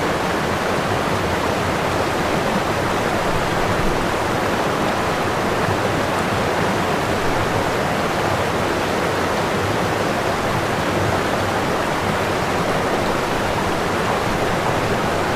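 Running water rushing steadily, an even unbroken hiss.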